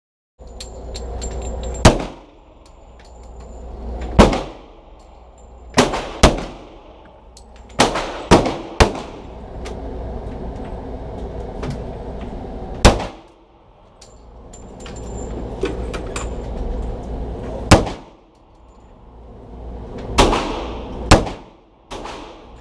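Handgun shots echoing in an indoor range, about eleven at irregular spacing, some in quick pairs and triplets, with a steady low hum of range ventilation between them.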